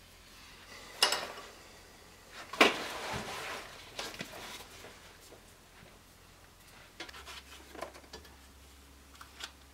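Hand-work sounds on a workbench: two sharp knocks of objects set down on the bench, the second followed by paper rustling, then scattered light clicks and taps.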